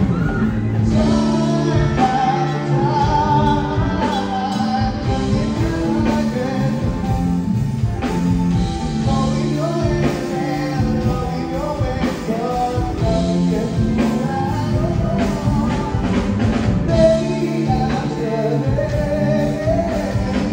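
Live band playing a rock song: a singer backed by electric guitars, keyboard and drums.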